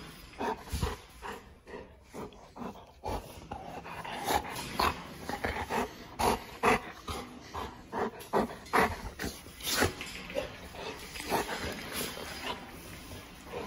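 Golden retriever making excited greeting noises right at the phone: short, uneven bursts of whining and panting, a happy dog's welcome.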